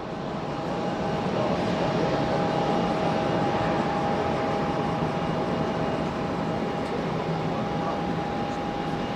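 Boeing 747-400's four jet engines running, a steady rushing noise with two steady whining tones through it.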